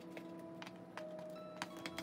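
Soft background music with held tones, with a few light clicks and taps as a plastic rice paddle presses cooked rice into plastic food containers.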